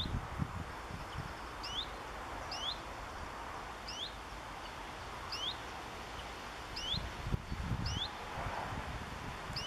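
A small songbird calling, a short two-note chirp (a higher note, then a lower one) repeated about every second and a half. Low gusts of wind rumble on the microphone near the start and again about eight seconds in.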